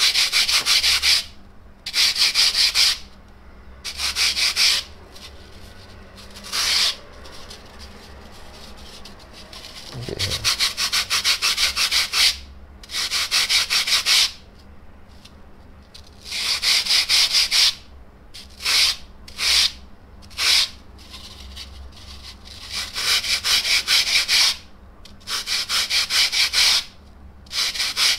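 Polyurethane foam block being hand-sanded with a sanding block: rapid back-and-forth strokes in runs of one to two seconds, with short pauses between runs.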